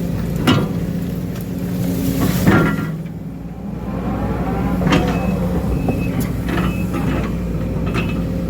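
Case CX210D excavator's diesel engine running steadily under hydraulic load while digging, with several sharp knocks and clanks from the bucket working the ditch. The engine sound drops briefly about three seconds in, then comes back.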